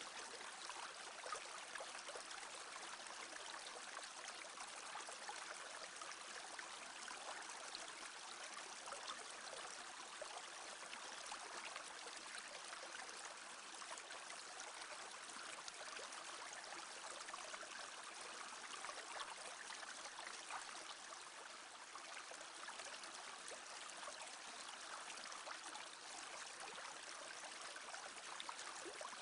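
A small brook babbling steadily: an even rush of flowing water with small irregular splashes.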